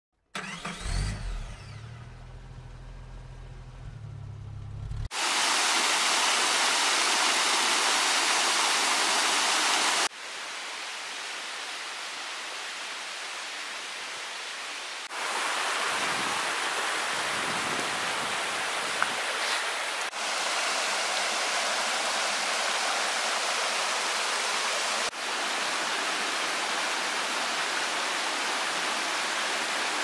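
A Daihatsu Tanto Custom kei car's engine is started and runs at idle for a few seconds. Then rushing water from a small mountain stream takes over, as a series of clips that jump suddenly in loudness about every five seconds.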